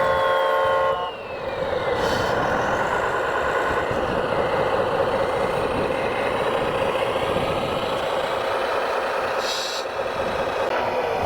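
Radio-controlled scale-model construction vehicle running: a steady engine-like hum with a motor whine that falls in pitch over the first two seconds, and two short air-brake-like hisses, about two seconds in and near the end.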